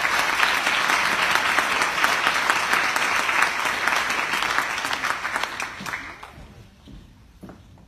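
Audience applauding, dense and steady, then dying away about six seconds in.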